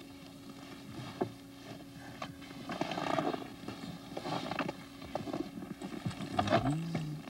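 Irregular knocks and scrapes from a gloved hand handling frosty wooden gear, over a steady low hum. Near the end comes a brief low wavering tone that rises and then falls.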